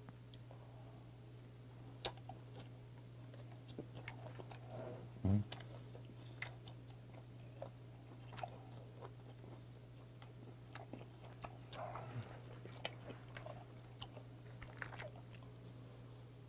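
Close-miked chewing of a mouthful of semi-dried saury gwamegi: soft wet mouth clicks and smacks scattered throughout, the loudest about five seconds in, over a faint steady low hum.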